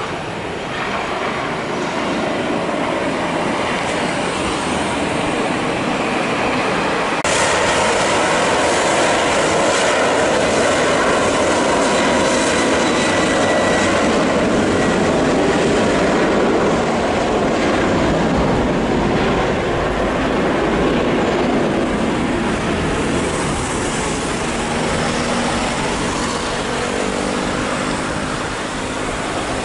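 Engines of narrow-body jet airliners on a runway: a steady, loud rushing jet noise that jumps louder about seven seconds in, with a faint high whine in the middle.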